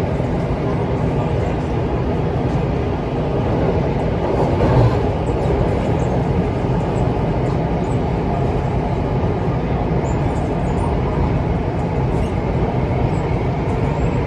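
Interior running noise of an Alstom Metropolis C751A metro train in motion: a steady rumble of wheels on rail and motors heard from inside the car, swelling slightly about five seconds in.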